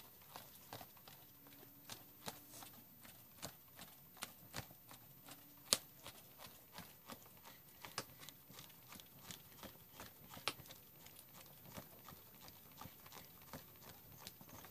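Wood fire crackling under a wire grill of roasting caterpillars and pupae: faint, irregular sharp pops, a few each second, with a louder pop a little before six seconds in and again past ten seconds.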